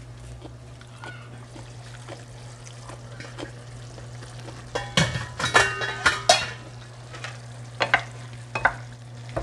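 Chicken and potato cubes sizzling in a frying pan while a wooden spatula stirs them, with a cluster of sharp knocks and scrapes against the pan about five to six and a half seconds in and a few more near the end. A steady low hum runs underneath.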